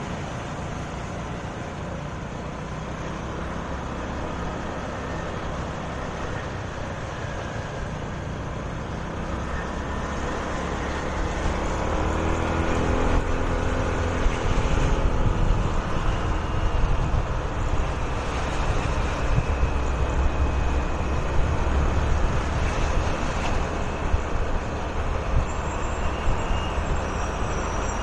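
On-the-move ride noise from a motor scooter in traffic: steady wind and road rumble with engine sound, growing louder partway through. About halfway through, the engine of a dump truck running close alongside is heard.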